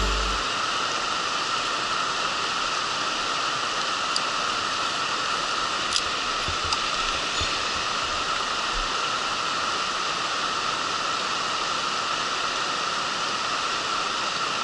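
Mountain stream running over a shallow rocky riffle: a steady rush of water, with a few faint clicks in the middle.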